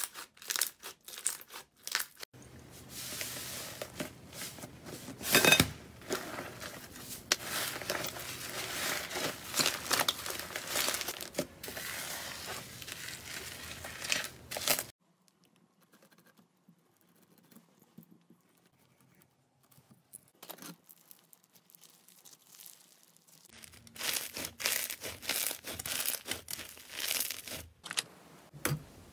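Hands squeezing, stretching and kneading slime, making sticky crackling, popping and tearing sounds. About halfway through it goes nearly quiet for several seconds, with only a few small clicks, before the crackling starts again.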